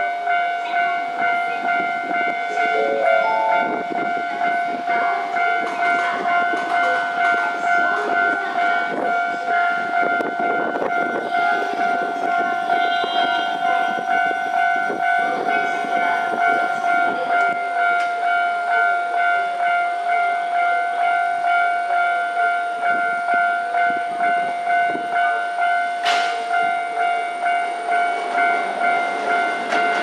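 Japanese railway level-crossing alarm ringing continuously: one pitched electronic ring repeated evenly, about one and a half times a second, as the crossing stays closed for an approaching train.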